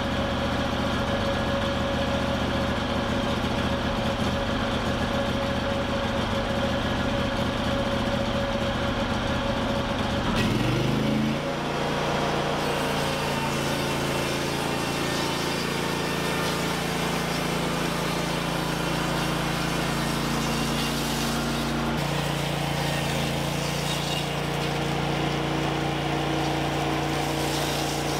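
Small gasoline engine of a Norwood LumberMate LM29 bandsaw mill idling with an uneven rumble, then revving up about ten seconds in and running on steadily at a higher speed.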